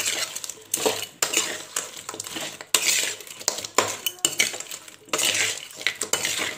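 A metal spoon scraping and clanking against a metal pan in repeated strokes as crab pieces are stirred in a thick masala.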